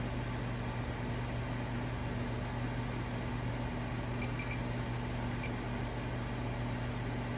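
Steady low electrical hum with an even hiss, like a fan or mains-powered equipment running. Three faint short high blips come about four seconds in, and one more a second later.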